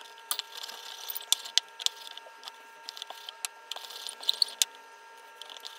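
Wooden rolling pin rolling out dough on a starch-dusted wooden board, with scattered light taps and clicks as the pin and hands work the dough, over a faint steady hum.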